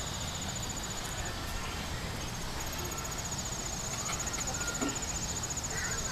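A high, rapid, evenly pulsed insect trill over low steady background noise. It breaks off a little over a second in and starts again about a second later.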